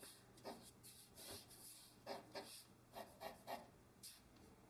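Pencil drawing on paper: a string of short, faint scratching strokes as lines are sketched in.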